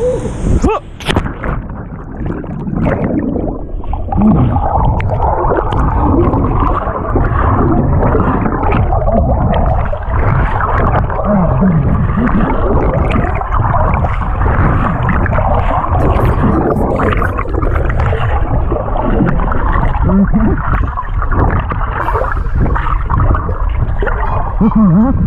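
Loud rushing, churning river water heard close up on a chest-mounted GoPro in the water, muffled, with gurgling bubbles now and then.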